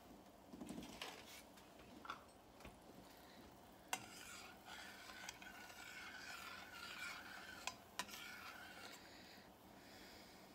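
Faint stirring of brown-sugar caramel sauce in a saucepan, a spoon scraping round the pan with a few light clicks against its side.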